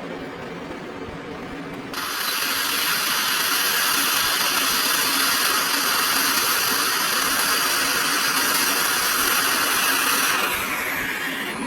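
Hot air rework station blowing: a steady hissing rush of air with a fan whine starts suddenly about two seconds in, then winds down with a falling pitch near the end.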